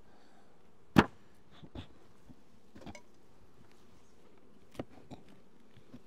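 Beehive boxes and lid being handled: one sharp knock about a second in, then a few lighter clicks and knocks as the hive is taken apart.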